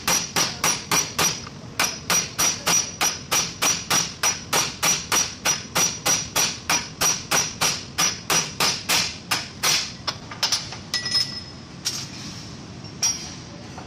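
Hammer blows on a steel drift driving a bronze bush into the bore of a forklift steering axle housing, metal on metal with a short ring after each blow. The blows come evenly, about three a second, then stop about ten seconds in, with a few single knocks after.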